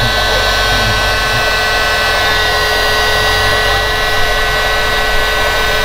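Electric heat gun running steadily: a fan rush with a steady motor whine, heating a crimped bullet connector on a wire to shrink its sleeve.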